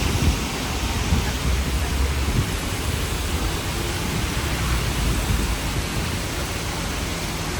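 Hong Kong double-decker tram running along in the rain: a steady low rumble under an even hiss, with a few light knocks in the first few seconds.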